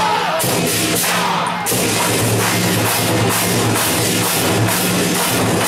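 Live drum troupe beating large barrel drums in a driving, regular rhythm, heard loud over amplified backing music, with a brief break about a second and a half in.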